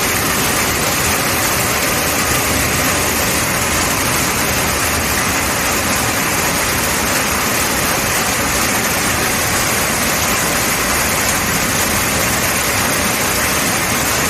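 Heavy summer downpour: rain falling steadily as an even, unbroken rush.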